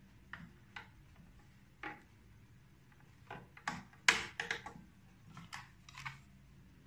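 Light plastic clicks and taps from hands handling a Sony CFS-B55 radio cassette player and a cassette tape. The clicks come irregularly, a dozen or so, with the loudest cluster about four seconds in.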